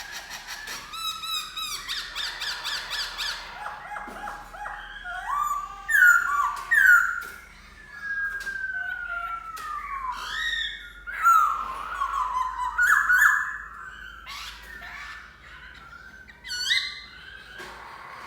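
Black-throated laughingthrush singing: a fast run of repeated notes, then loud, varied whistled phrases that include a long falling whistle.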